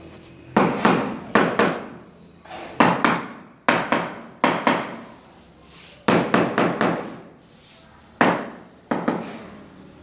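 Hammer blows on a construction site, struck in quick groups of three to five with short pauses between, each strike ringing briefly.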